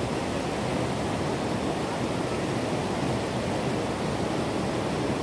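Steady rush of white water pouring over rocks at a waterfall.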